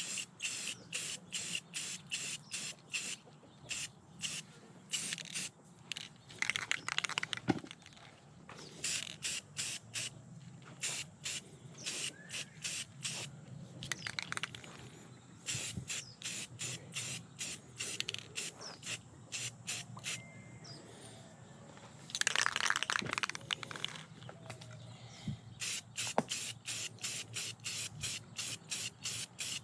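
Aerosol spray paint can sprayed in many short hissing bursts, a couple a second, with two longer sprays, one about seven seconds in and one about twenty-two seconds in.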